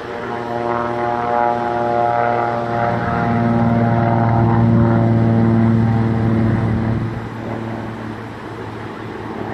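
Propeller-driven aerobatic airplane's engine droning as the plane flies a smoke-trailing display, growing louder through the middle of the clip and then dropping off after about seven seconds.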